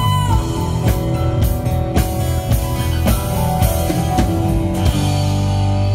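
Live rock band playing: drum kit hits over held guitar and bass chords.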